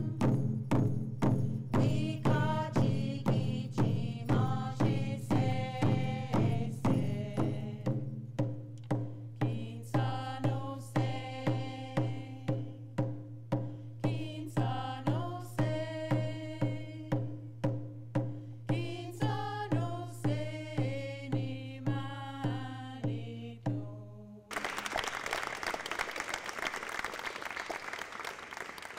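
Women's voices singing a chant to a steady beat on hand-held frame drums. The song stops about 24 seconds in and audience applause follows.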